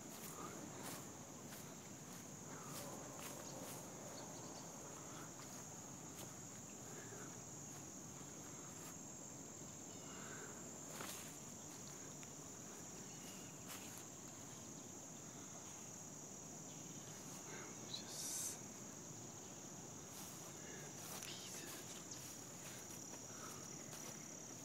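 Insects trilling in a faint, steady, high-pitched drone, with a second trill joining partway through. Scattered faint clicks run throughout, and a brief louder high sound comes about eighteen seconds in.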